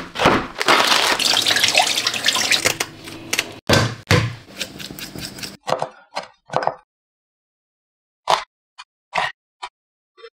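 Kitchen food-prep sounds in quick cuts: a few seconds of continuous rushing or rustling noise, a shorter second stretch, then a handful of separate light taps and clicks.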